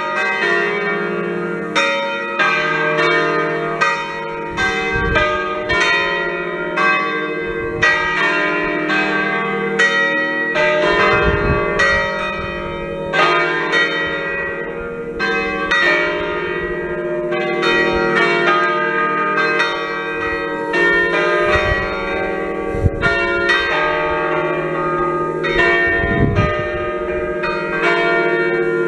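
The parish church's five bronze bells, cast by Achille Mazzola in 1951 and tuned to a slightly flat E-flat, ringing together. Their strokes overlap in a continuous, uneven run of about two to three strikes a second, each tone ringing on into the next.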